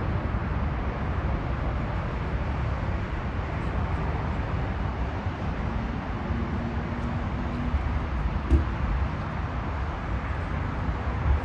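Jet airliner's twin engines rumbling steadily as it touches down, with wind buffeting the microphone; a short thump comes about eight and a half seconds in.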